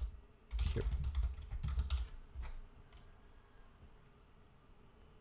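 Typing on a computer keyboard: a quick run of keystrokes that stops about three seconds in.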